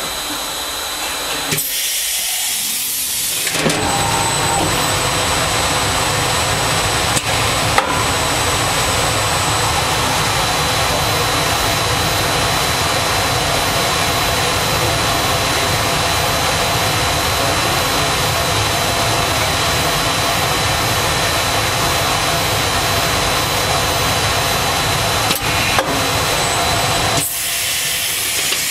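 TRUMPF TruLaser 3030 laser cutting machine running through its automatic nozzle change and beam centering: a steady, loud rushing hiss with a faint high whine. It swells a few seconds in and drops back near the end, with a few sharp clicks along the way.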